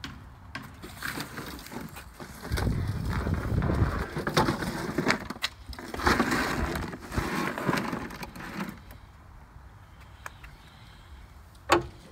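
An electric lawnmower being handled: several seconds of clattering, scraping and knocking, with a single sharp knock near the end.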